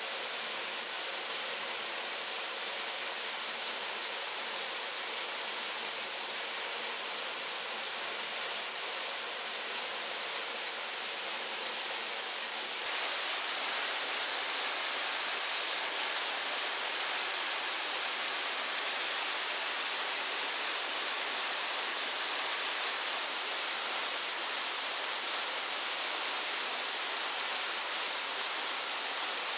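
Steady rush of flowing water, stepping up slightly in level about thirteen seconds in.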